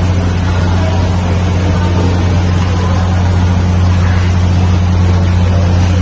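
A steady, loud low hum with a faint hiss over it, unchanging throughout.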